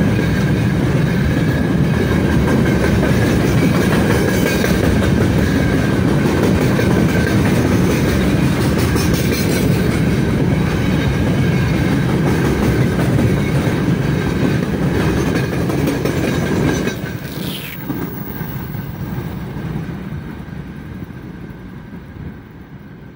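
Freight train of open gondola wagons rolling past close by, wheels rumbling and clattering on the rails. About seventeen seconds in the last wagon passes, the sound drops sharply, then fades as the train moves away.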